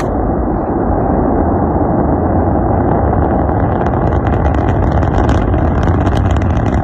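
Rocket engines roaring in a loud, steady rumble, with sharp crackling coming in about four seconds in.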